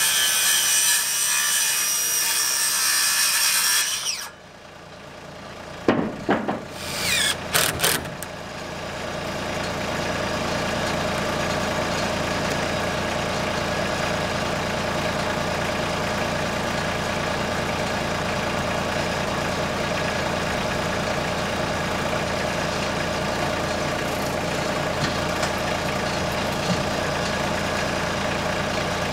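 Cordless circular saw cutting through a wooden truss tail, the blade stopping about four seconds in; a few knocks follow a couple of seconds later. From about nine seconds on a tractor engine idles steadily.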